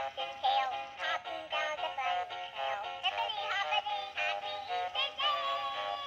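Animated plush flapping-ear bunny toy playing its built-in song: a synthetic singing voice over an electronic backing melody.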